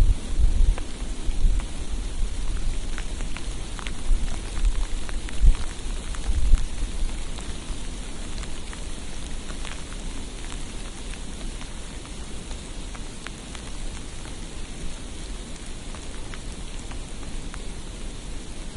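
Steady hiss of precipitation falling on a street, with faint scattered ticks of drops or flakes landing. Low gusts of wind buffet the microphone through roughly the first seven seconds, then ease.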